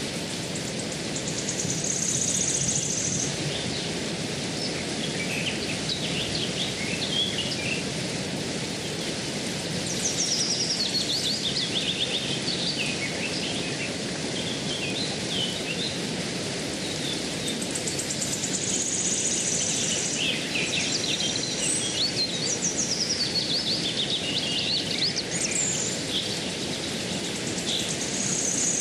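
Outdoor ambience of birds chirping and trilling, repeatedly and in many short calls, over a steady low rushing noise.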